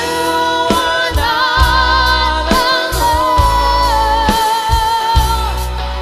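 A band playing a song with a lead vocal: the singer holds long notes with vibrato over sustained bass notes and steady drum hits.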